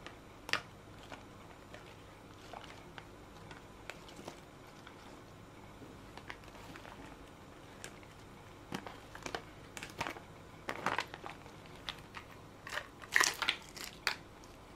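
A metal fork scraping and tapping against thin clear plastic salad containers as toppings are pushed from a plastic tray into the bowl, with scattered clicks and crinkles of the plastic. The handling gets busier in the second half, with the loudest rattle of clicks near the end.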